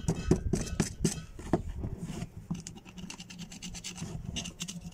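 Screwdriver blade scraping and chipping caked dried mud off a rusted, long-buried revolver, with irregular scrapes at first and a fast run of short scratching strokes in the second half.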